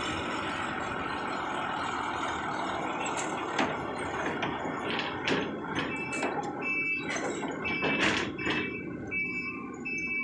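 Heavy truck engine running as the truck pulls slowly past, then, from about six seconds in, a string of short high-pitched beeps with several sharp hissing bursts among them.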